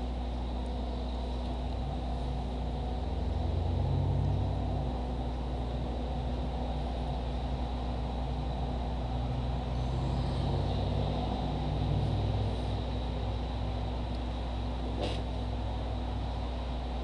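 Steady low hum and rumble of background noise picked up by the recording microphone, swelling slightly twice, with a single short click near the end.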